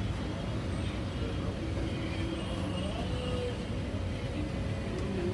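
Steady low rumble of street traffic, with faint, brief voices in the background.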